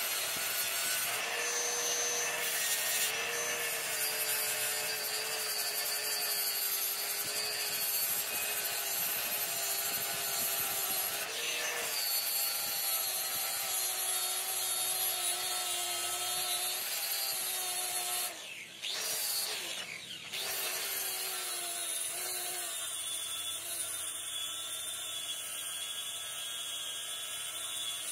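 Electric angle grinder running under load, its disc grinding down a weld bead on a metal bracket: a steady motor whine over the hiss of grinding. About two-thirds of the way through, the whine briefly drops in pitch and level, then picks back up.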